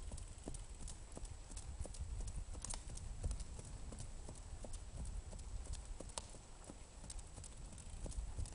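Paint horse trotting on a dirt track, its hoofbeats landing in a steady rhythm of about three a second.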